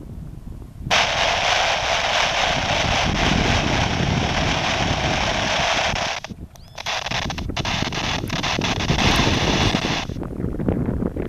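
Air-band radio receiver hissing with static, switching on sharply about a second in and cutting out briefly about six seconds in, with scattered crackles, over a continuous low rumble.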